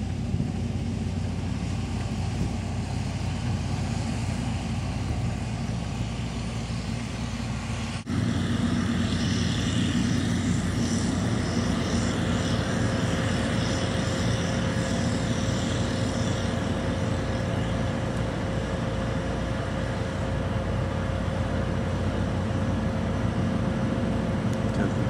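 Combine harvester running with a steady engine drone. About eight seconds in the sound cuts abruptly and comes back louder, and a few seconds later a steady whine joins it.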